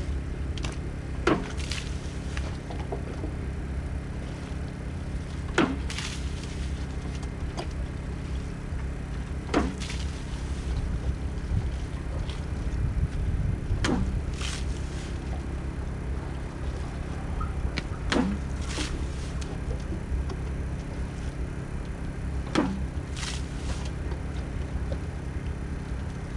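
A small engine-driven water pump running steadily with a low hum. About every four seconds a spade strikes and scrapes into wet clay, six times in all.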